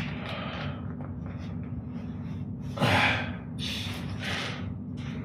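A man's heavy breathing: a sharp breath about three seconds in, then a few shorter breaths, over a low steady hum.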